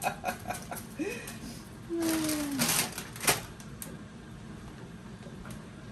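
Dorito tortilla chips crackling and rustling as they are handled and laid into a pan, with a brief falling tone about two seconds in and a sharp click a little after three seconds; after that only a faint steady room hum.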